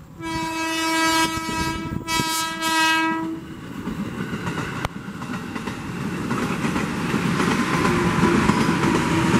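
KRL Commuter Line electric train sounding its horn in two blasts, a long one and a shorter one with a brief break between them. It then passes close by with its wheels clattering over the rails, growing louder toward the end.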